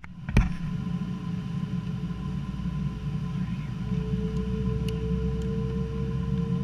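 Boeing 777-200ER cabin noise: a steady low rumble from the airliner's engines and airframe, with a faint steady engine tone above it. A sharp knock sounds just after the start, and a second tone comes in about four seconds in and rises slightly.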